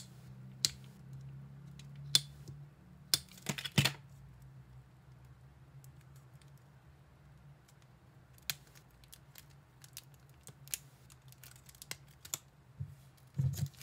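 Paper and plastic merchandise being handled and unpacked by hand: scattered sharp clicks and taps, a cluster of them about three and a half seconds in, then a run of lighter ticks later, over a low steady hum.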